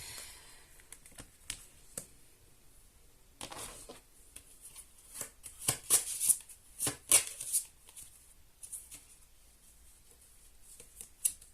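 Tarot cards being shuffled and handled by hand: a run of crisp papery snaps and flicks, busiest in the middle.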